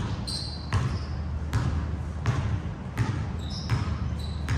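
Basketball dribbled on a hardwood gym floor, bouncing about once every three-quarters of a second, with sneakers giving a few short squeaks on the floor.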